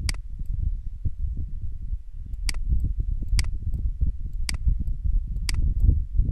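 Computer mouse clicking sharply five times, roughly a second apart, over a continuous low rumble.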